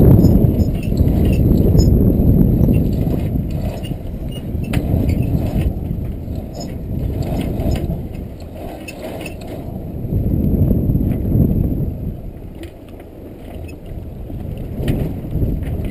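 Irregular metallic clicks and rattles from a sailboat's roller furler drum being worked by hand to free a jammed furling line, over a steady rush of wind and sea that swells and fades.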